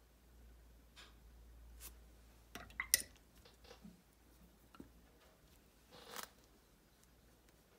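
Faint clicks and taps of a fine paintbrush being worked in paint on a palette, with a quick cluster of sharper clicks about three seconds in and a short scraping rustle about six seconds in.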